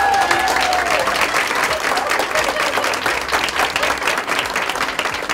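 A room full of people applauding, dense steady hand-clapping.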